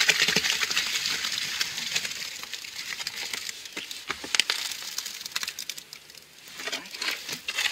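Wet concrete mix sliding out of a plastic mixing tub and spilling into a post hole: a gritty crackling that is dense for the first couple of seconds, then thins to scattered light clicks as the last of the mix is emptied.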